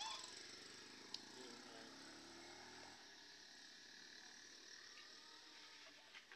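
Near silence: faint outdoor background hiss, with a faint low hum that fades out about three seconds in and a single light click about a second in.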